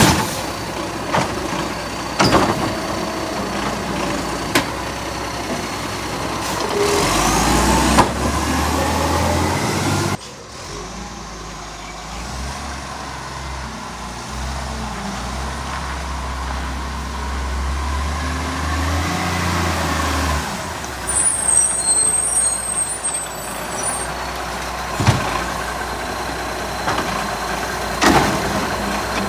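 Garbage truck engine running and revving up twice, with a few sharp clicks or puffs; the truck has a small exhaust leak that can be heard if you listen closely.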